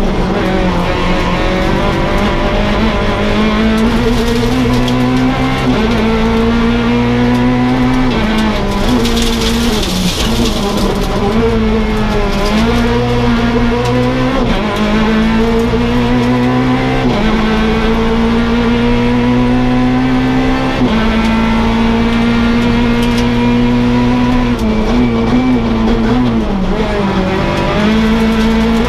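Peugeot 208 R2 rally car's four-cylinder engine heard from inside the cabin, revving hard and climbing through the gears, the pitch dropping at each quick gear change every few seconds. A brief burst of hiss comes about a third of the way in.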